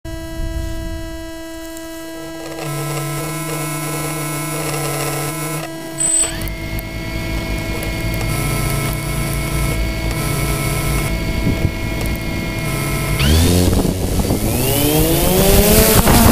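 DJI Phantom 2 quadcopter on the ground: a steady electronic whine, then a short high beep about six seconds in as its motors start and settle into a steady idle whine. About thirteen seconds in the motors spool up with a rising whine as it lifts off.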